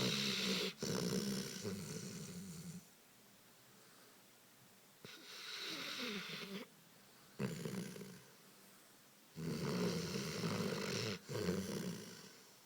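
A Dogo Canario dog snoring: about four long snores with short quiet gaps between them, the first and last the loudest.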